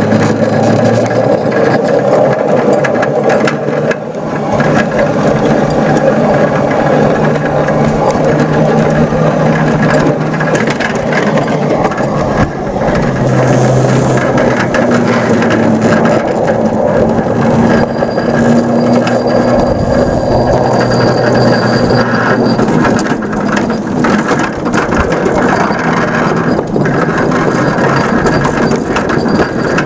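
5-inch gauge ride-on Whitcomb model locomotive running along garden-railway track: a steady mechanical running noise with a drive hum that shifts in pitch now and then, and scattered clicks from the wheels on the rails.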